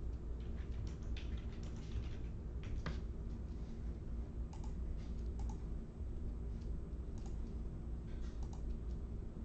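Scattered, irregular clicks of typing on a computer keyboard over a steady low hum.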